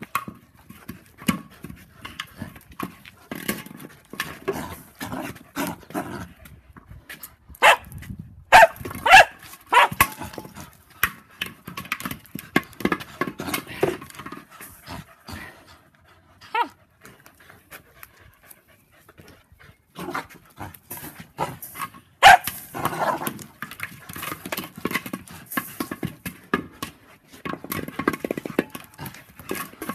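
Australian cattle dogs playing, with a quick run of sharp barks about eight seconds in and single barks near 17 and 22 seconds, and scuffling and small knocks between them.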